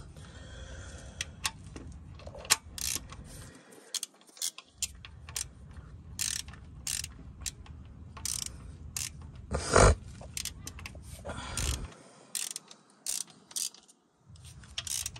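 Hand ratchet clicking in short bursts of strokes as the half shaft bolts with their centering bushings are tightened, with one louder metallic knock about two-thirds of the way through.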